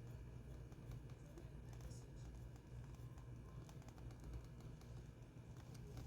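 Faint scratching and small scattered clicks of hand work on a phone during a screen repair, over a steady low hum.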